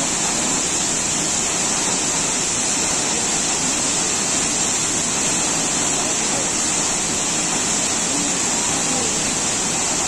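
Waterfall pouring: a steady, loud rush of falling water.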